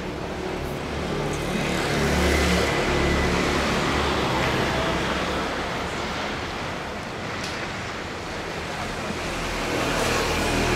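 Road traffic passing on a city street: a steady rush of engines and tyres, with a vehicle's engine rumble loudest about two seconds in.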